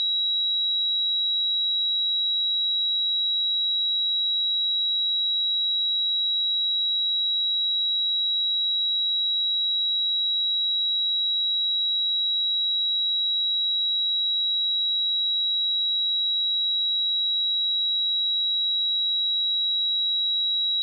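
Pure 3871 Hz sine test tone, a steady high-pitched beep held unchanged at one pitch and level.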